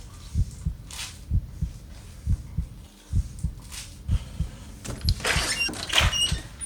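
Heartbeat sound effect: low double thumps (lub-dub) about once a second. From about five seconds in, a louder scraping, rustling noise with short squeaks plays over it.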